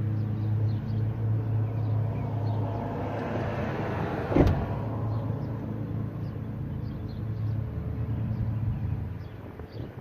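Old Toyota Corolla engine running at the tailpipe during a hard start, a steady low drone with one sharp pop about four seconds in; the sound drops away near the end.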